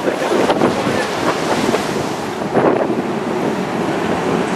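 Twin-engine jet airliner's engines at takeoff thrust, their exhaust blast hitting the microphone as a steady, gusting rush of wind noise.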